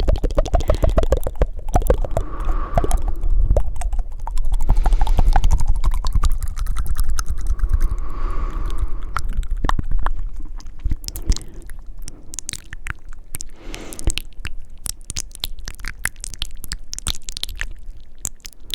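Close-miked ASMR mouth sounds: fast, wet tongue flutters and rapid clicks, with a few breathy puffs in between.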